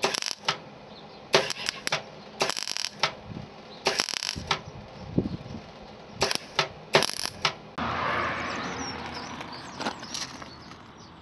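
Welding arc crackling in short bursts, run after run of stitch or tack welds, as a steel reinforcing patch is welded onto a crushed Mazda MX-5 sill jack point. About eight seconds in a steady hiss starts suddenly and then fades.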